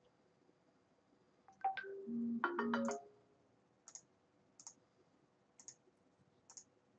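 Online poker client sound effects: a short electronic jingle of several stepped tones about a second and a half in, the loudest sound, then four short high clicks roughly a second apart.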